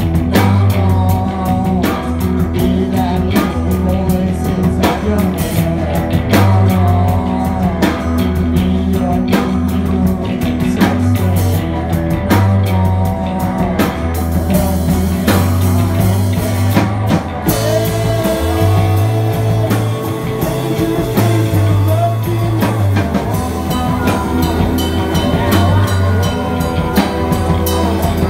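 Live rock band playing: electric guitars, banjo, a bass line and a drum kit. About two-thirds through, the cymbal and drum hits thin out and held guitar notes come forward.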